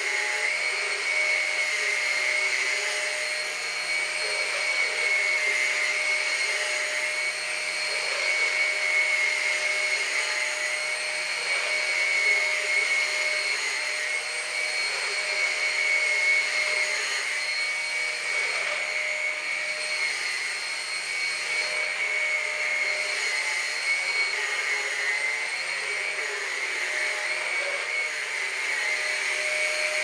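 Numatic Henry Quick HEN70 cordless stick vacuum running below full power, its motorised brush head pushed back and forth over carpet. A steady motor whine and rush of suction that swells and eases gently with the strokes.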